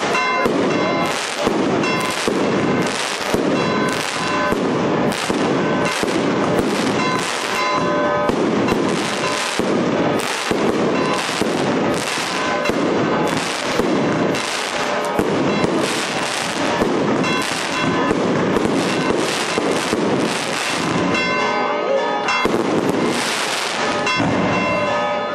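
Aerial fireworks going off in a continuous barrage: rapid bangs, roughly two a second, with no let-up. Bells ring steadily underneath.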